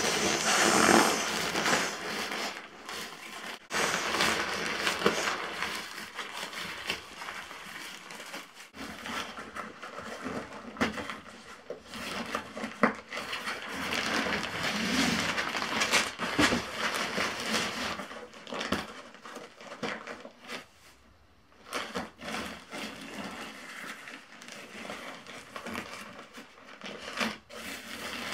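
Nylon pump sack and inflatable sleeping pad rustling and crinkling as the sack is rolled and pressed to push air into the pad, with a short lull about three quarters of the way through.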